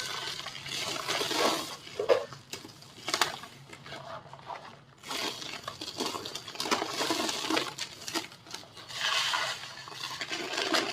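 Dry, moulded white-cement shapes crumbling and breaking under pressure: crisp, irregular crunching and crackling with small sharp clicks, easing off briefly around the middle before picking up again.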